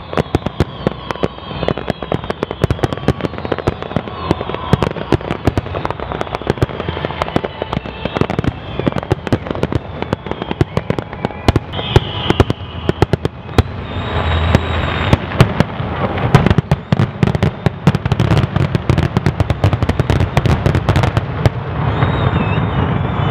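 Fireworks display: a rapid, continuous run of sharp bangs from bursting shells over a crackling hiss. The bangs grow heavier and closer together about two-thirds of the way through, and near the end a denser, steadier crackling takes over.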